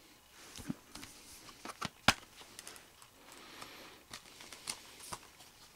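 Clicks and light handling noise from a thin plastic Blu-ray case being handled and opened, with one sharp snap about two seconds in.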